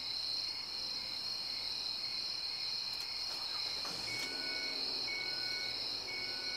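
Crickets chirping steadily, a continuous high trill. About four seconds in, a faint two-note beep joins, repeating roughly once a second.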